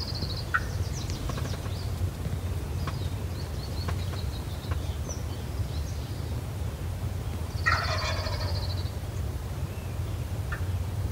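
Male wild turkey gobbling once, a loud rattling call about eight seconds in, over a steady low rumble.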